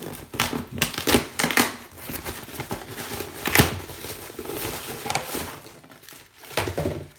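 Cardboard shipping box and its packing being torn open by hand: irregular tearing, crinkling and rustling.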